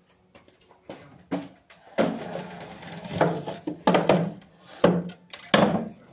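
Handling noise on a phone's microphone: a run of irregular muffled thumps and rubbing as the phone is moved with its lens covered.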